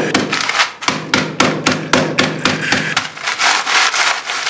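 Wooden rolling pin pounding Oreo biscuits inside a plastic bag to crush them into fine crumbs: a quick run of knocks about three a second, with the bag crinkling under the hands, the crinkling strongest in the last second or two.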